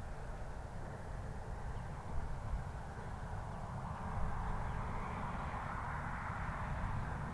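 Distant engine noise of a passing vehicle, a steady low rumble that swells louder about halfway through and stays up.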